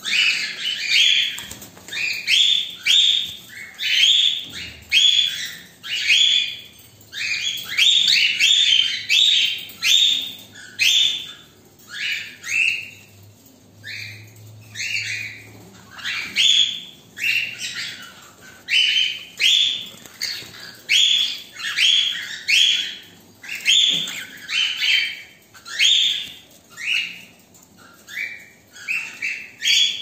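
Cockatiels calling over and over in short, harsh chirps, about one to two a second, easing off briefly around the middle.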